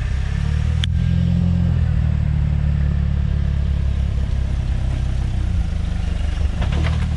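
Jeep Wrangler TJ engine running low and steady while the Jeep crawls over boulders, with one sharp click about a second in.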